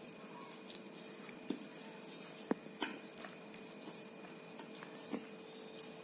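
Faint squishing and rustling of hands squeezing a sticky jaggery-and-peanut mixture into balls and rolling them in flour powder, with a few small sharp clicks in the middle.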